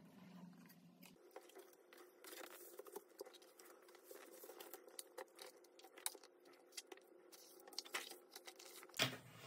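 Stiff paper and card being handled: an LP's large printed insert and photo prints rustling, sliding and tapping in short irregular bursts, with one sharper knock near the end.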